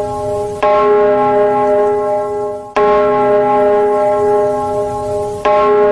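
A bell-like tone from an outro jingle, struck three times about two and a half seconds apart, each strike ringing on until the next.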